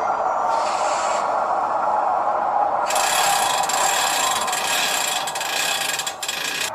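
Freight cars being uncoupled during switching: mechanical rubbing and ratcheting over a steady hum, with a short hiss about half a second in, then a loud hiss from about three seconds in that stops abruptly near the end.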